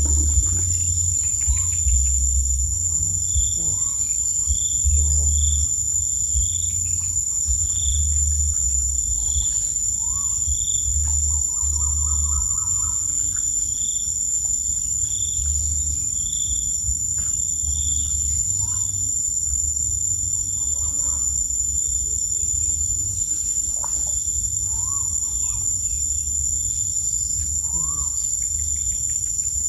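Outdoor insect chorus: a steady high-pitched drone with short chirps repeating about once a second, and scattered brief rising calls of birds or frogs. Under it runs an on-and-off low rumble.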